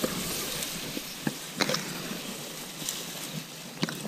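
Steady rustling hiss with a few sharp snaps or clicks: one just over a second in, a quick pair a moment later, and one near the end.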